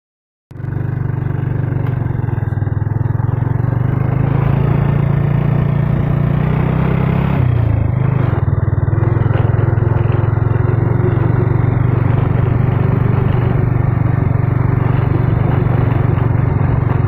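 Motorcycle engine running steadily while riding, with wind and road noise; the engine note dips briefly about halfway through and then picks up again.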